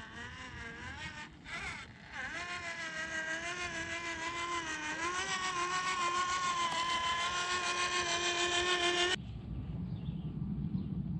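Electric RC rock crawler's Hobbywing Quickrun Fusion Pro brushless motor and gear drivetrain whining, its pitch wavering with the throttle and slowly climbing. It cuts off abruptly about nine seconds in, leaving a low rumble.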